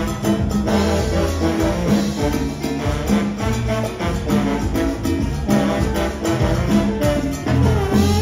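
Live salsa band playing an instrumental passage, its trombone section blowing sustained, punchy lines over the rhythm section with a steady beat.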